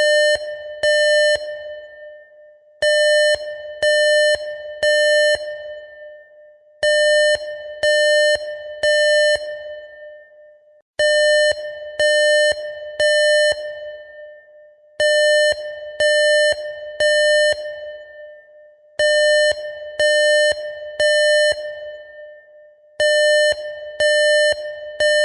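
Electronic emergency alarm beeping in groups of three, about one beep a second, with a new group every four seconds and each group trailing off in an echo. This is the temporal-three pattern used for fire evacuation signals.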